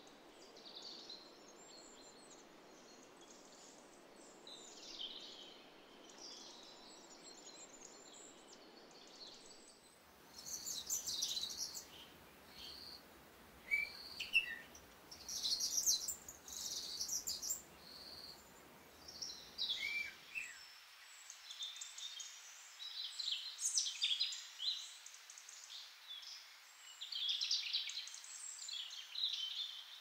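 Several small birds singing and calling in quick chirps and short trills over a faint steady outdoor hiss. The birdsong grows louder and busier about a third of the way in, and the background noise changes abruptly twice.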